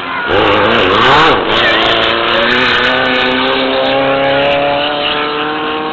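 Off-road race car engine revving hard. It surges up and down quickly for about a second, then pulls steadily higher in pitch as the car accelerates away.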